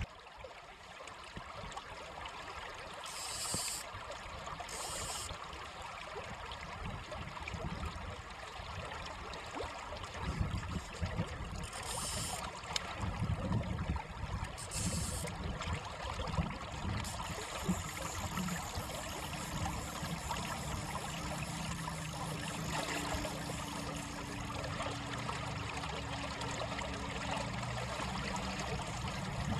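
Shallow stream running over a stony bed: a steady rush and trickle of water.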